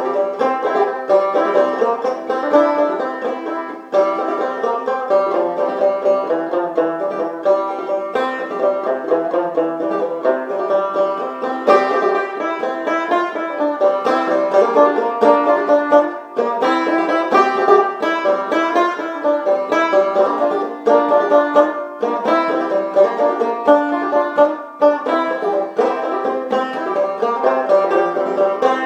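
Openback banjo played clawhammer style in double C tuning (gCGCE), a solo waltz tune with a steady three-beat lilt.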